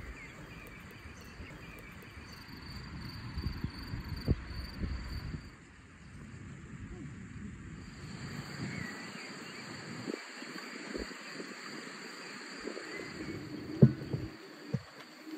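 Rural outdoor ambience of insects trilling in a steady high tone, which drops out for a couple of seconds around the middle. A couple of soft knocks come near the end.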